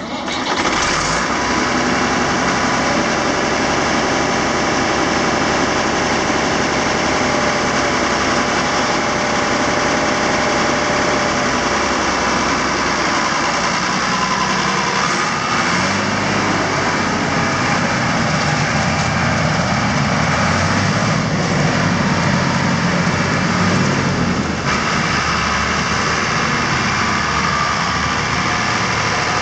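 Ford 8600 tractor's six-cylinder diesel engine running steadily at a low idle, then changing pitch about 13 seconds in as the tractor moves off and is driven slowly around.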